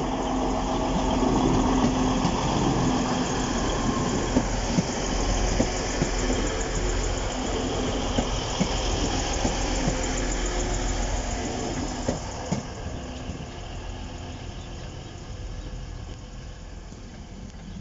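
Class 185 diesel multiple unit passing and drawing away: diesel engine noise and rumble with scattered wheel clicks over the rail joints. The sound fades steadily from about twelve seconds in as the train recedes.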